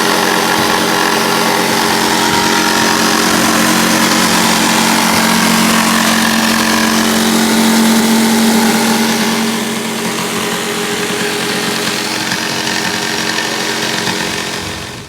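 Electric power tool motor running steadily at a constant pitch. It gets a little quieter about ten seconds in and stops near the end.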